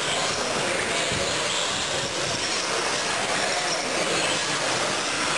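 Electric 1/10-scale short-course RC trucks racing on an indoor dirt track: a steady wash of motor whine and tyre noise, with faint high whines over it.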